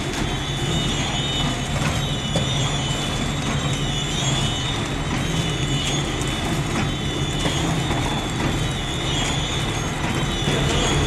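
Horizontal flow wrap packing machine running steadily, with a constant low hum, a wavering high whine and faint scattered clicks from its rollers and sealing wheels.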